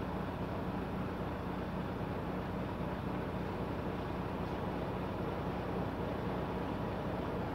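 Vehicle engine heard from inside the cab, running steadily with a constant low hum.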